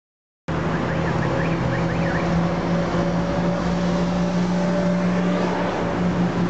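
Steady road traffic noise with a constant low hum beneath it, starting abruptly half a second in.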